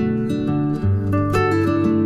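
Background music: acoustic guitar playing a run of plucked, ringing notes.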